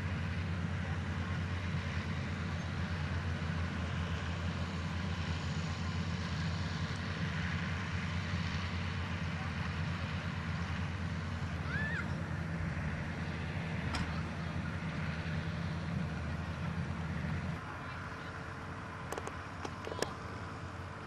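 Tractor engine running steadily with a low rumble, which drops away about three-quarters of the way in. A couple of sharp clicks near the end.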